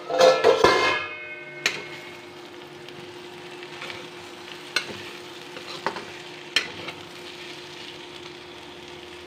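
Metal spatula stirring and scraping potato and pointed gourd slices in a metal kadhai, with a loud ringing clatter in the first second, then a few sharp taps of the spatula against the pan, over the sizzle of the frying vegetables and a steady hum.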